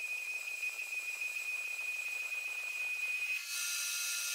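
Metal lathe cutting a steel disc with a carbide insert tool: a steady high-pitched whine with hiss from the cut. A little over three seconds in, it changes to a brighter, noisier cutting sound as the tool works the face of the disc.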